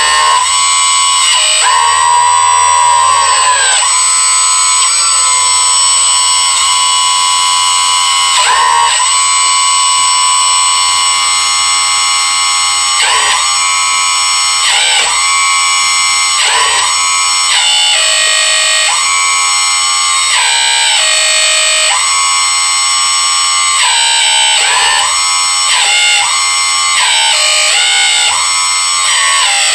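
Background electronic music, with held synth tones that dip and bend in pitch every few seconds.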